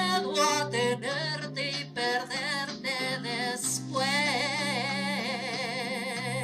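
A woman singing into a microphone over instrumental accompaniment, with short phrases at first and then one long note held with vibrato from about four seconds in.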